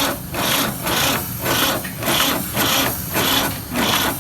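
A hand tool rasping back and forth in even strokes, about two a second, like filing or scraping a metal engine part.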